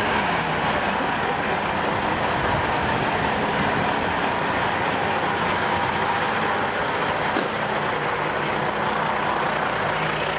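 Steady, loud din of idling vehicle engines, cars with a coach and trucks among them, with two faint ticks, one just after the start and one about three-quarters of the way through.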